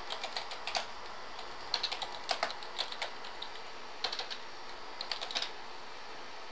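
Typing on a computer keyboard: irregular short runs of keystroke clicks with brief pauses between them.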